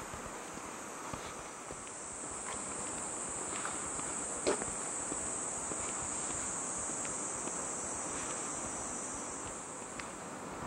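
Cicadas droning in the trees: a steady high-pitched buzz that swells about two seconds in and eases near the end. Light footstep clicks come through, with one louder knock about four and a half seconds in.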